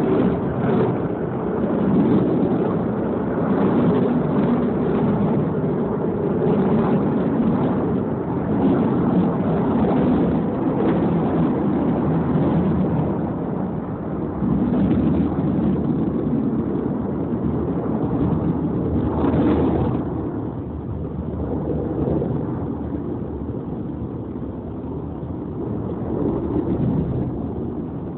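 Wind buffeting a phone's microphone: a loud, uneven rumble that eases off somewhat after about twenty seconds.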